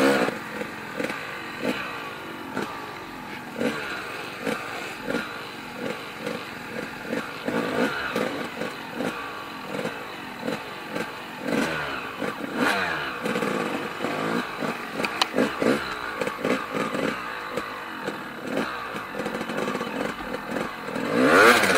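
Snowbike engines, dirt bikes fitted with snow track kits, revving in repeated throttle blips that rise and fall in pitch, with a bike coming in much louder right at the end.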